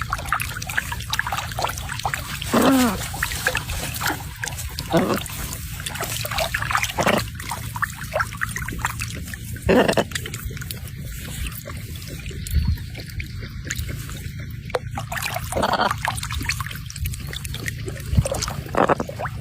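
Macaw playing in water: steady trickling, splashing water, with several short, pitch-bending squawks from the parrot every few seconds.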